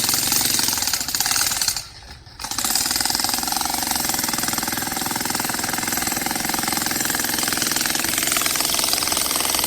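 Jackhammer pounding continuously at a rapid rate, breaking up rock. It stops for about half a second roughly two seconds in, then starts again.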